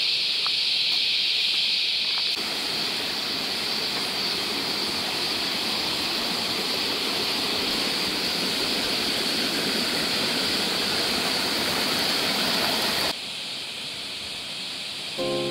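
Cicadas buzzing in a steady, high-pitched drone. From a couple of seconds in, the rushing of a shallow rocky creek joins them, then stops abruptly near the end, leaving the cicadas fainter.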